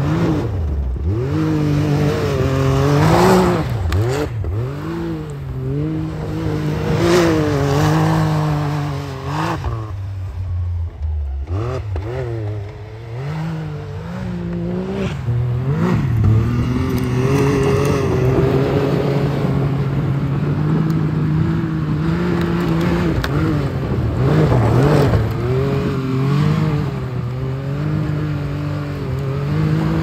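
Can-Am Maverick side-by-side's engine revving up and down as it slides and spins in snow. It eases off about ten seconds in, then is held at a steadier high rev through the second half.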